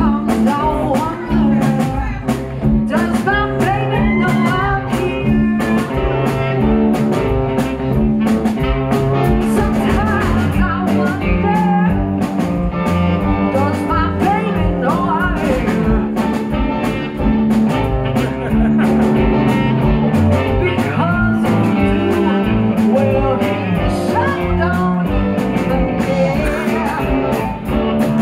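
A live blues band playing: a Telecaster electric guitar through a Dumble-clone amp and Marshall 4x10 cabinet, saxophone, electric bass and drums, with a woman singing.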